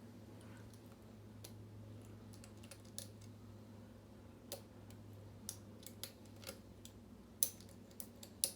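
Hook pick and tension wrench working the pin stack of a lock cylinder: irregular small metal clicks, a few a second, with the two sharpest near the end, as pins set and the lock goes into a false set. A steady low hum runs underneath.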